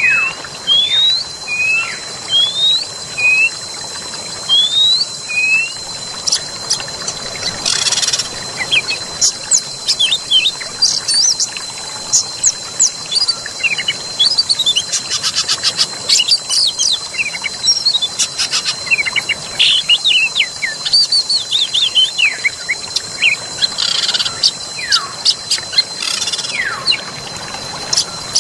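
Several wild birds singing over a steady rush of flowing water: repeated upward-slurred whistles about once a second at first, then a dense run of quick high chirps and trills, with a constant thin high tone underneath.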